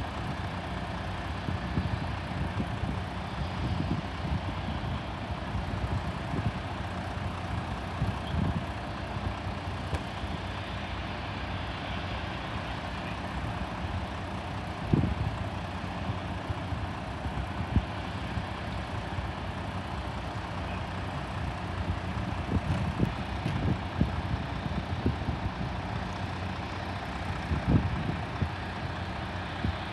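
An engine idling steadily with a low rumble, with a few brief low thumps along the way.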